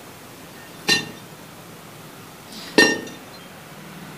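Two sharp metallic clinks, about two seconds apart, each ringing briefly: an iron pump rod knocking against the hand pump's iron barrel as it is handled.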